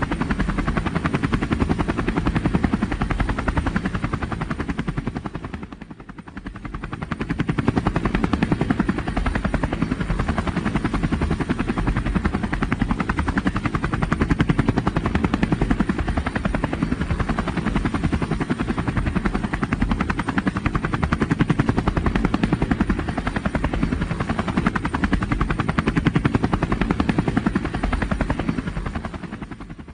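Helicopter in flight: steady rapid rotor chop over the engine's running noise. It fades down and back up about six seconds in, and fades away near the end.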